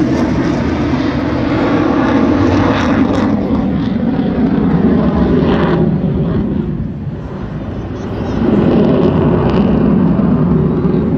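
Delta-wing fighter jet flying a display pass, its engine noise loud and steady. The noise dips about seven seconds in and swells again about a second and a half later.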